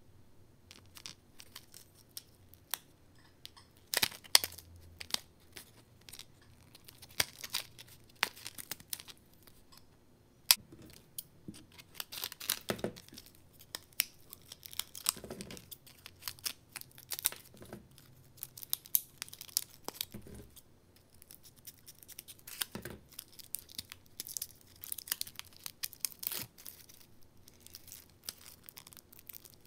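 Clear plastic blister pack being cut and torn open by hand: irregular crinkling and crackling of stiff plastic with scattered sharp snaps, the loudest about four seconds and ten seconds in.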